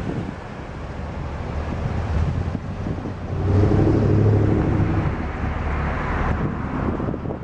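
Low vehicle engine rumble that swells about three and a half seconds in and then eases, over wind buffeting the microphone.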